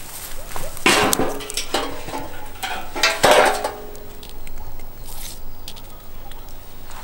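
A stainless steel bowl knocked and tipped over with a wooden stick, clanging twice, about a second in and again about three seconds in, each time ringing on briefly, with lighter knocks of the stick between.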